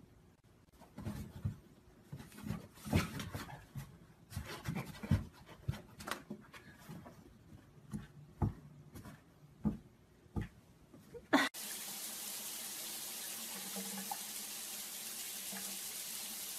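Scattered light knocks and taps as a cat paws at a hole in a board, then, about eleven seconds in, a steady rush of water running from a tap.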